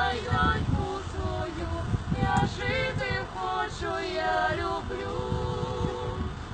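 A group of women and men singing a lullaby together, holding long wavering notes.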